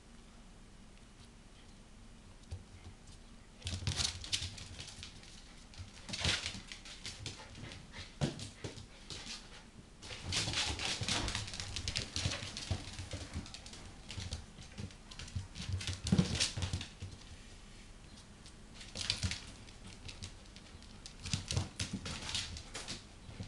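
A black Labrador puppy and a Jack Russell terrier play-fighting: irregular bursts of scuffling and dog play noises, starting a few seconds in and coming and going.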